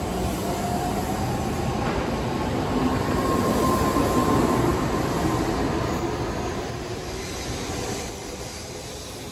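N700S Shinkansen train pulling out of the station and picking up speed beside the platform: a rising electric motor whine over the rumble of the wheels and rushing air. It is loudest around four seconds in and eases off toward the end.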